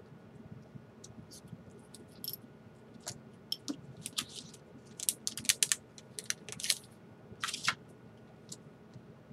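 A scattered run of small sharp clicks and crackles from tools and small plastic parts being handled during a tablet teardown. The clicks are densest in the middle, with a quick loud cluster about five seconds in.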